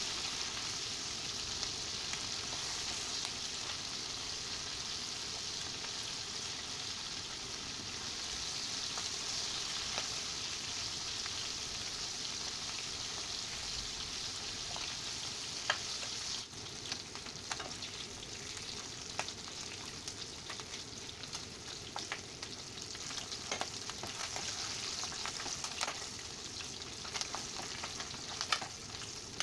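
Calamari frying in hot oil: a steady, dense sizzle that thins after about sixteen seconds into a lighter sizzle with scattered crackles and pops.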